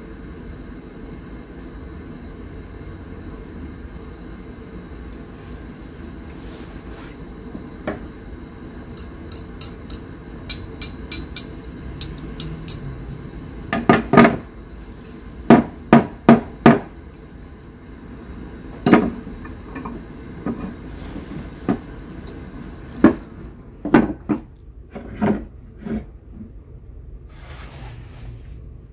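Brass pieces, an old door knocker and a small brass pipe, being handled and set down on a wooden tabletop, heard as light clicks and then a string of sharp, irregular knocks and clacks over a steady background noise. The knocks start about halfway through and are the loudest sounds.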